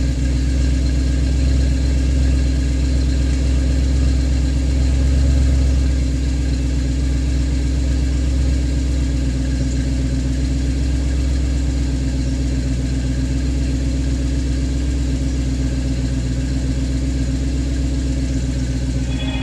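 2000 Lincoln LS 3.9L V8 idling steadily, heard at the tailpipe through Flowmaster 40 mufflers with the resonators deleted and replaced by straight pipe.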